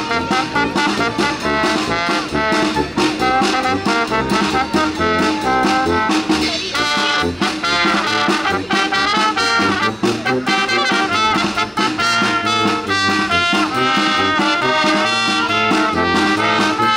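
Brass band with drums playing a tune: brass carries the melody over a steady drum beat.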